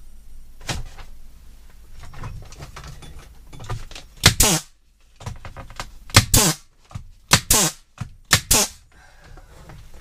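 Pneumatic 18-gauge brad nailer firing nails into wooden shiplap ceiling boards. It fires in four loud clusters starting about four seconds in, each a sharp crack with a short hiss of air. Faint knocks of boards being handled come before.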